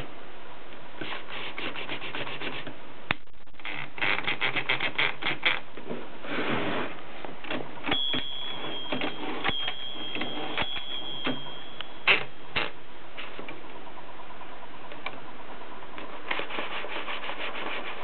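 Olympia SM 2 manual typewriter's platen and carriage being worked by hand: several runs of fast ratchet clicks as the platen is turned, a rubbing slide, and a few sharp single clicks of the mechanism. A thin high squeak is held for about four seconds midway.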